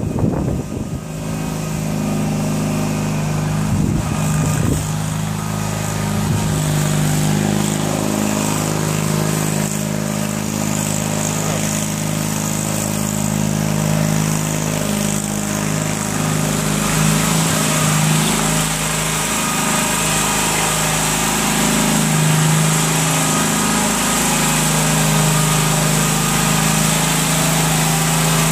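Air Horse aircraft tug's engine running steadily as the tug is driven across the ramp.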